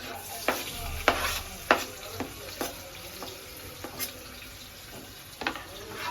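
Onions sizzling in hot oil in a cooking pan as they are stirred, with a utensil knocking against the pan about eight times at irregular intervals.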